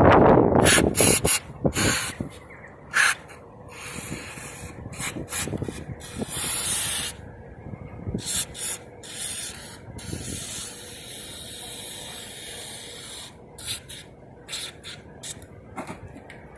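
Aerosol lubricant sprayed in many short hissing bursts, with one longer burst about six or seven seconds in, applied to cure a squeaking rear suspension on an Opel Corsa D.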